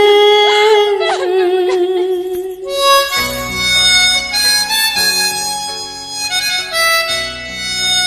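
Instrumental ringtone music: a long held note that wavers slightly for about three seconds, then a melody line over steady bass notes.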